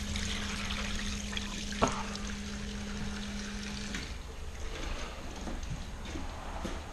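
Parts washer pump running with solvent trickling and splashing as a part is rinsed, with one sharp knock about two seconds in; the pump hum and flow stop about four seconds in.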